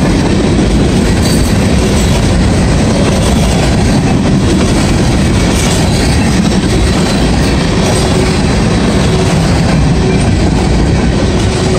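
Freight train of covered hoppers and tank cars rolling past close by, its steel wheels running on the rails in a steady, loud rumble.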